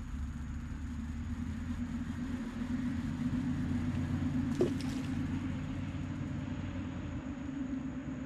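A distant engine running with a steady low rumble that grows slightly louder toward the middle, with one faint click about four and a half seconds in.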